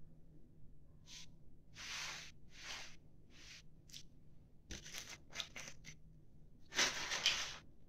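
Scattered handling noises: short scrapes and rustles, a sharp knock about five seconds in, and a longer, louder scrape near the end.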